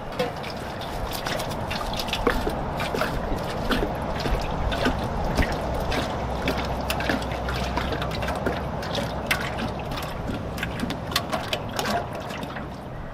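Peanut oil pouring in a steady stream from a bag-in-box spout into a metal frying pot, a continuous trickling splash with frequent small splats, as the pot is filled for deep-frying a turkey.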